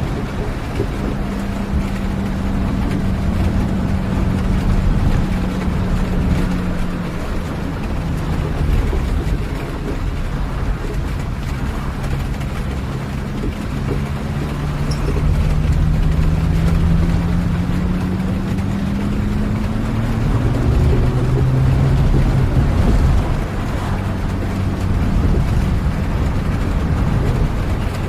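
Low, steady rumble of a moving vehicle with an engine drone whose pitch holds, then rises gradually over several seconds and drops back lower.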